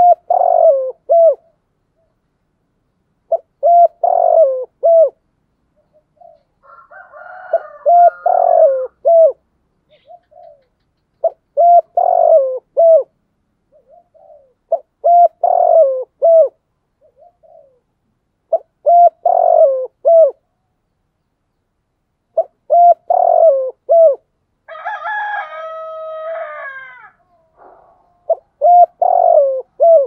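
Spotted dove cooing: a short phrase of several coos, repeated about every three and a half seconds, eight times in all. Near the end a different, longer call with several steady pitches sounds for about two seconds.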